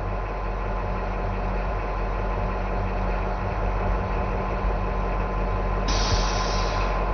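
Off-road haulage truck's diesel engine idling steadily, heard from inside the cab while the controls are function-tested.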